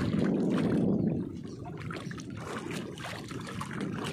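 Sea water sloshing and lapping close to the microphone, with small splashes and drips; louder for about the first second, then softer.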